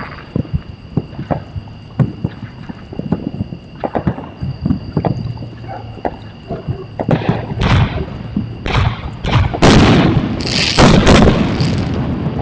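Fireworks going off: a scattered string of sharp pops and cracks, then from about seven seconds in louder, denser bangs and crackling bursts.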